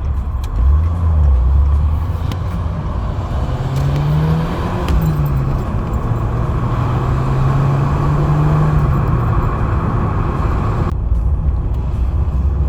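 Peugeot engine and sport exhaust backbox pulling under acceleration through the gears, over a steady rush of road and wind noise. The note climbs, drops at a gear change about five seconds in, climbs slowly again and falls away about nine seconds in.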